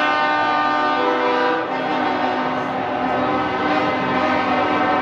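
Truck air horns blowing, several held tones sounding together as one loud chord, the lower notes changing about a second and a half in.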